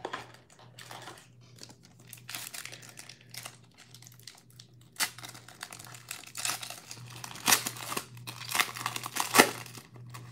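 A Panini Prizm basketball trading-card pack's wrapper crinkling as it is handled and torn open by hand, with sharp crackles that get louder and come closer together in the second half.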